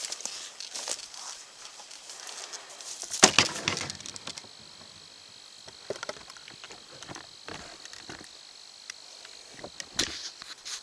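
Crackling and rustling in dry leaves and brush, as of footsteps and handling, with a louder crunch about three seconds in and another near the end. A faint steady high whine runs underneath.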